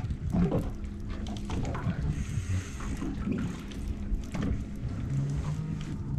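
Water slapping and lapping against a boat hull over a steady low hum. Scattered small clicks and knocks come from a conventional fishing reel being cranked.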